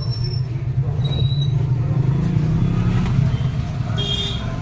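Washing machine running: a steady low motor hum that rises slightly in pitch about halfway through.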